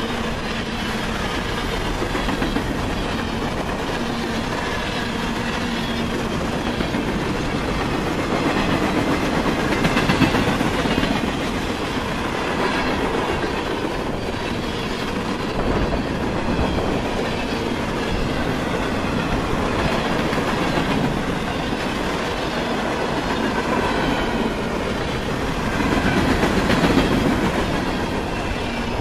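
Cars of a passing freight train rolling by close to the track: a steady loud rumble of steel wheels on rail. It swells louder twice, about a third of the way in and near the end.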